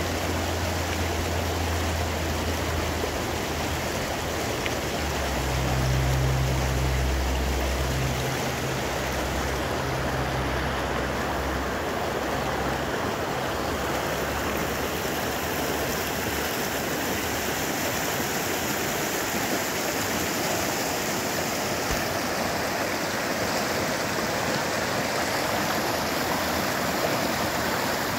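Mountain stream rushing over rocks, a steady even rush of water, with a low rumble underneath during the first dozen seconds.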